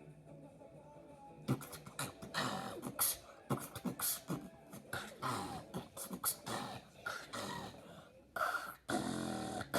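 Beatboxed "robot walk" effect done with the mouth: a string of sharp clicks and short gliding tones. It starts about a second and a half in, breaks off briefly near the end, then carries on.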